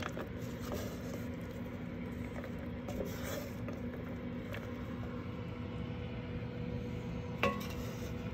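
Wooden spoon stirring cooked lentils in a metal pot: faint soft scrapes and a few light taps, with one sharper knock of the spoon against the pot near the end, over a steady low hum.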